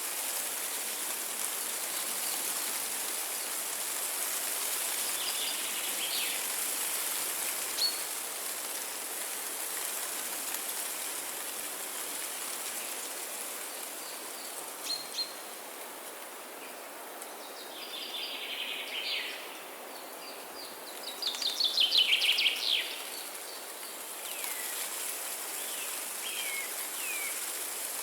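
Windy rainforest ambience: a steady hiss of wind through foliage with birds calling over it. Scattered short chirps, a louder run of rapid calls about three-quarters of the way through, and a few short falling calls near the end.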